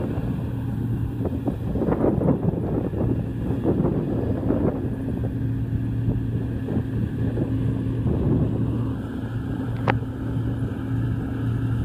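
A 2011 Gleaner R55 combine runs steadily while harvesting wheat, its engine giving a low, even hum. Wind buffets the microphone in gusts, strongest in the first few seconds.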